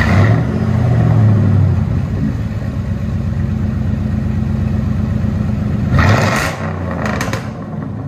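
Supercharged V8 of a Ford F-150 Lightning pickup firing up through its side-exit dual tips. It flares and settles to a steady idle, then is revved once about six seconds in.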